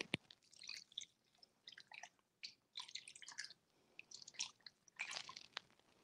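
Orange juice poured from a glass measuring cup over raw Cornish game hens in a metal bowl: faint wet splashing and squishing with a few small clicks.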